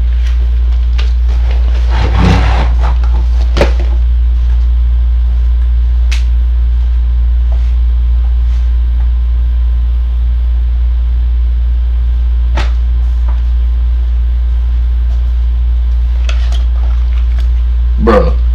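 Loud, steady low electrical hum on the recording, the audio fault the uploader apologises for, with a few faint clicks and knocks over it and a short rustle about two seconds in.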